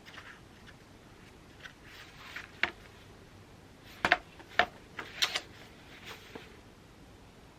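A handful of light, sharp clicks and taps of small objects being handled, scattered and uneven, loudest in a quick cluster from about four to five and a half seconds in, over quiet room tone.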